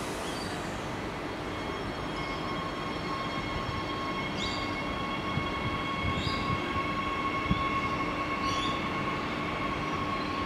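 Adelaide Metro 4000 series electric train pulling away from the platform. A steady electric whine from its traction equipment comes in about a second and a half in and holds over a rumble of wheels on rail. Short high rising chirps repeat about every two seconds.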